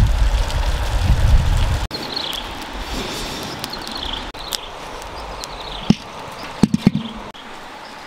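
Outdoor ambience: a loud low rumble for the first two seconds, then a steadier hiss with repeated short high chirps and a few sharp knocks near the seven-second mark.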